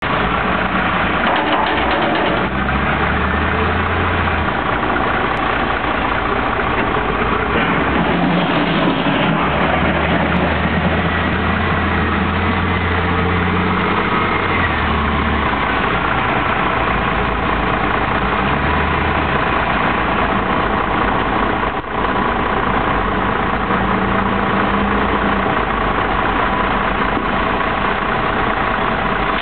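Volvo L70D wheel loader's diesel engine running under working load as it lifts and tips buckets of soil, its low engine note rising and falling every few seconds over a steady din of heavy diesel machinery.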